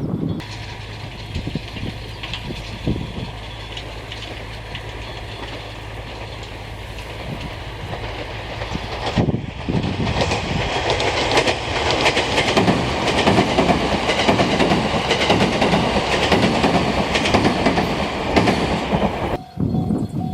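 The 787-series '36ぷらす3' electric train running past on the line. About nine seconds in it becomes louder, with dense clattering of wheels over the rails, and the sound cuts off abruptly near the end.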